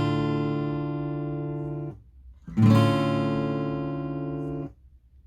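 A D minor chord on an acoustic guitar, strummed and left to ring, then damped about two seconds in. It is strummed again about half a second later, rings, and is damped again near the end.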